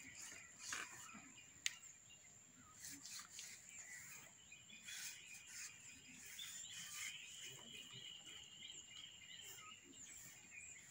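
Faint bird calls, short chirps scattered throughout over a thin steady high-pitched tone, with a single sharp tick nearly two seconds in.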